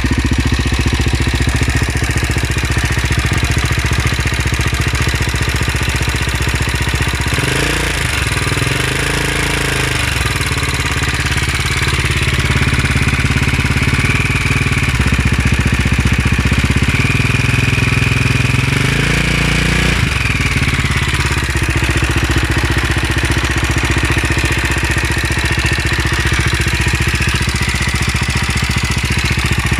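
KTM LC4 single-cylinder four-stroke engine idling with a ticking from the top end, the revs rising and falling briefly twice, about 8 and 19 seconds in. The tick is the sound of a worn inlet rocker arm roller bearing.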